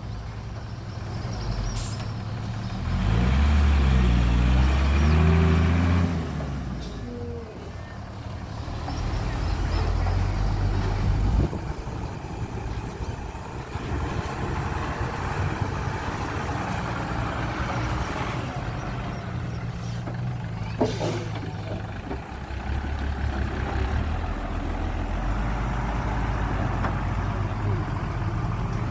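Heavy diesel engines of earthmoving machinery, a dump truck and loader, running steadily. The engine note swells and rises for about three seconds starting around three seconds in, swells again briefly near ten seconds, and is broken by a couple of short knocks.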